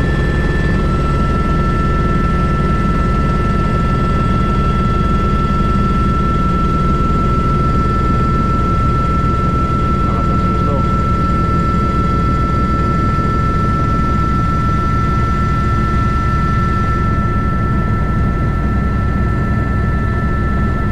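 Airbus H125 (AS350 B3) helicopter in flight, heard from inside the cockpit: a steady low rotor thrum under a constant high turbine whine from its single turboshaft engine.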